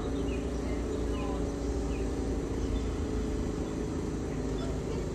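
Steady hum of a subway train standing in the station with its doors open, its equipment idling, with a few faint bird chirps over it.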